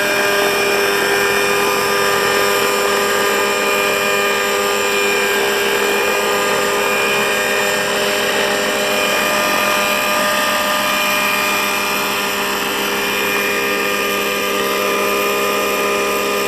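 Small fuel-powered radio-controlled helicopter running steadily on the ground just after landing: a continuous engine-and-rotor whine made of several held tones that drift slightly in pitch.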